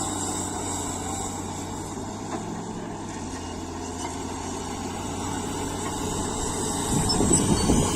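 Caterpillar D7G bulldozer's diesel engine running steadily, then growing louder and rougher about seven seconds in as it comes under load.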